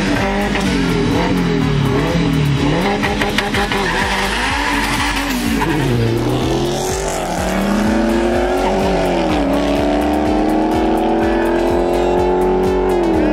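Drag-racing cars accelerating hard from the line. The engine note climbs in pitch and drops back several times as it shifts up through the gears, with tire noise in the mix.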